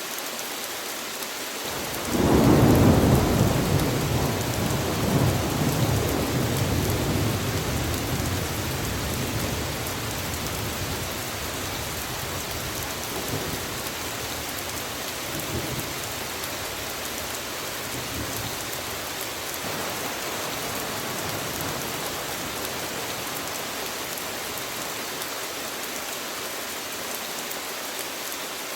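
Steady rain falling, with a clap of thunder about two seconds in that rumbles loudly and slowly dies away over several seconds.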